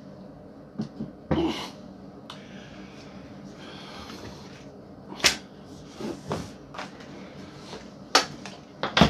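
Handling noise from a padded fabric Ravin crossbow soft case being moved about and lifted up by its strap: scattered knocks and sharp clicks with some rustling, the sharpest clicks about five seconds in and near the end.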